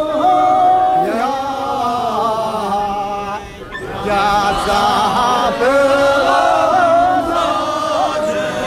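A group of voices chanting a Sherpa sherbu dance song in unison, holding long drawn-out phrases, with a short break between phrases about three and a half seconds in.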